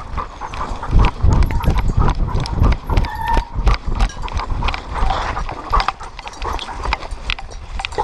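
A dog running hard on a dirt trail, heard from a camera on its back: quick, irregular paw footfalls and heavy jostling thumps from its gait, loudest in the first half.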